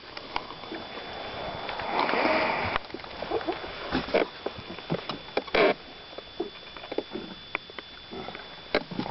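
A freshly landed fish in a landing net on a boat floor: irregular knocks, taps and net rustling as it flops and is handled, with a hand grabbing it near the end.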